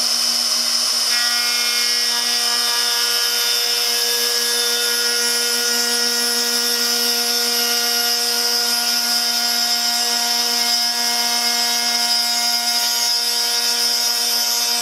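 Makita handheld plunge router running steadily at speed 3 on its dial, slowed down for a 3/4-inch bit, as it is pushed along a board cutting a groove. It makes a steady whine of several tones, and a few higher tones join in about a second in.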